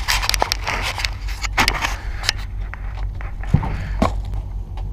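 Close handling noise from a body-worn camera: gear and clothing rustling, clicking and knocking as the player moves, with two louder knocks about three and a half and four seconds in.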